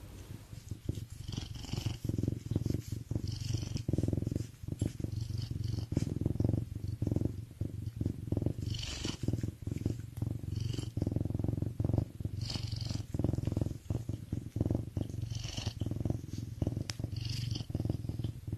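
A serval purring: a continuous low rumble, with a soft hiss recurring every second or two.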